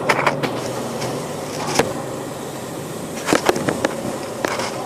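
Village street ambience: a steady hiss with scattered clatter and knocks, and a low motor hum that fades out in the first second and a half.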